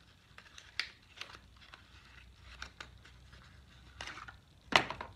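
A small cardboard product box being opened by hand: scattered light rustles and taps, with one sharp click a little before the end.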